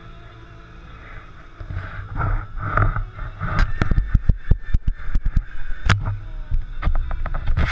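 Fishing boat under way: a low engine drone with rushing wind and water noise, which grows louder about one and a half seconds in. Through the middle there is a quick run of sharp knocks and slaps.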